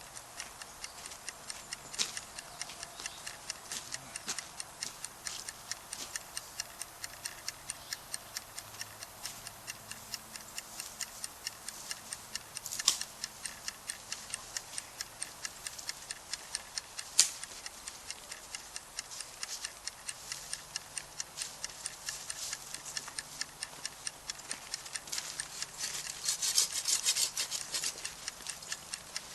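Steady, even ticking of about four clicks a second, with a few louder sharp pops and a denser burst of crackling near the end, typical of a campfire popping.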